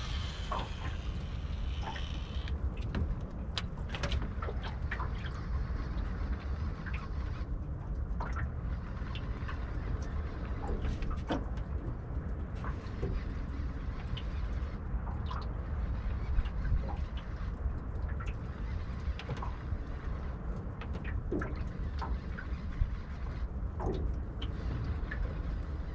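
Wind rumbling on the microphone, with water lapping and slapping against a small boat's hull in short, irregular splashes and clicks.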